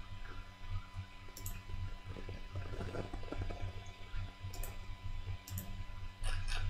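A few sharp computer mouse clicks, about a second and a half in and again twice near the end, over a steady low electrical hum and background noise.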